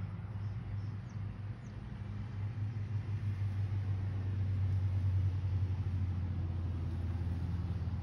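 A car driving down a hill on wet pavement: a low rumble that builds to its loudest about five seconds in and then holds.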